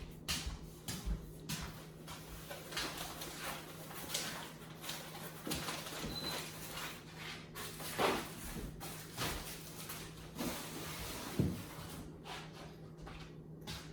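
Packaging and parts being handled: rustling with irregular knocks and bumps, the loudest about eight and eleven and a half seconds in, over a faint steady hum.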